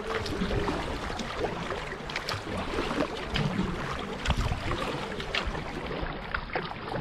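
Canoe being paddled: water splashing and dripping off the paddle blade in many small ticks over a steady hiss of moving water.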